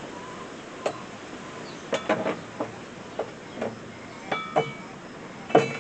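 A string of irregular sharp metallic clinks and knocks, about nine in all, some of them ringing briefly, as of metal tools and parts being handled and struck.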